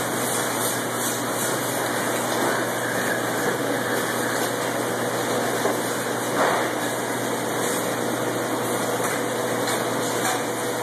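Steady machinery noise with a faint steady hum, and one brief knock about six and a half seconds in.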